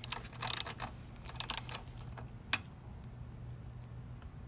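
A wrench clicking against metal in a few short quick bursts as a bolt is screwed down, stopping a little over halfway through.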